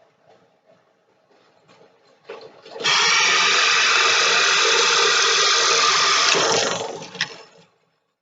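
Drill press with a 2-inch boring bit cutting into a wooden board. A faint motor hum comes first; about two seconds in, a loud, steady cutting noise starts, holds for about four seconds, then fades out, with a sharp click near the end.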